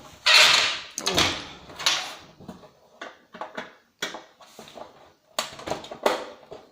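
Handling noise of tools and hard objects: an irregular run of knocks, scrapes and clatters, the loudest about half a second in.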